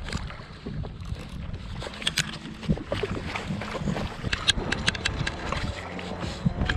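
Choppy sea water slapping and lapping against the hull of a drifting jet ski, with wind and many short sharp clicks and knocks, more of them in the second half.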